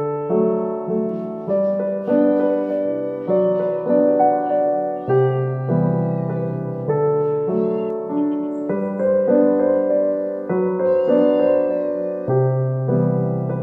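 Background piano music, a gentle sequence of notes and chords. A cat meows faintly a few times over it.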